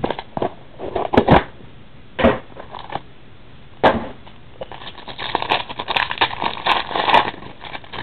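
Cardboard box handled with a few sharp knocks and rustles, then a trading-card pack's foil wrapper crinkling and tearing open in a dense crackle over the second half.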